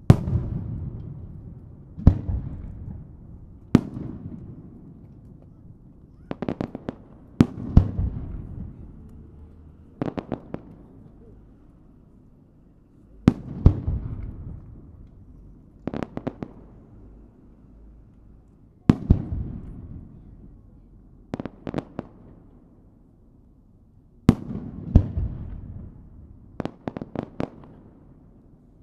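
Aerial firework shells bursting overhead: a sharp bang every few seconds, each followed by a low rumbling echo that dies away, with a quick run of several bursts near the end.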